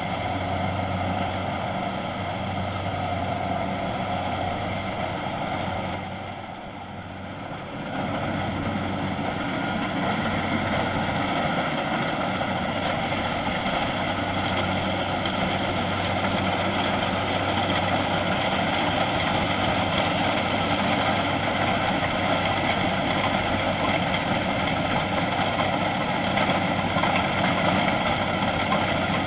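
Kubota DC-70 Plus rice combine harvester running steadily as it works. Its sound drops for about two seconds around six seconds in, then comes back at the same level.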